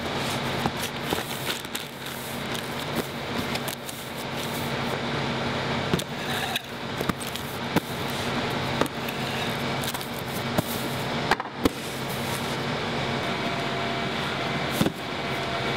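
Cardboard boxes being folded, knocked and sealed with a handheld packing-tape gun: the tape rasping off the roll, with scattered sharp knocks and clicks of handling. Beneath it a steady machine hum.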